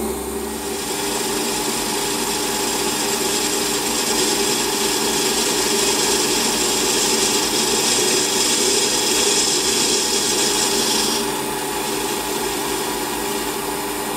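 Metal lathe running with a turning tool cutting the outside diameter of a model-engine cylinder end cap. A steady cutting hiss starts about a second in and stops about eleven seconds in, leaving the lathe's steady hum.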